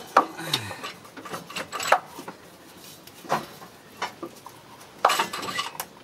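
Metal clanking and scraping as a cylinder head is worked loose and lifted off the engine block of a 1997 Honda CR-V, with several sharp clanks about a second apart.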